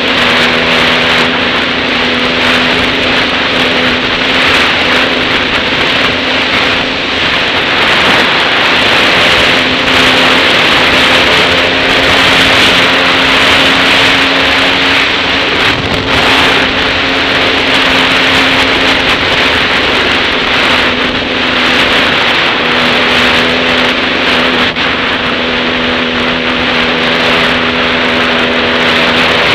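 Dirt bike engine running at a fairly steady pace while riding, its note shifting a few times with the throttle. Loud wind rush over the helmet-mounted microphone is heard through it.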